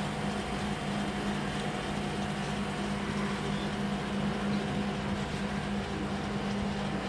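A steady machine hum: a constant low drone with an even rumble under it, unchanging throughout.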